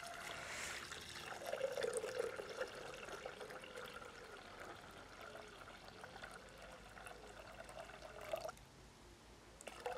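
Water poured from a glass jug into a Thermomix's stainless-steel mixing bowl, a steady pour that stops shortly before the end.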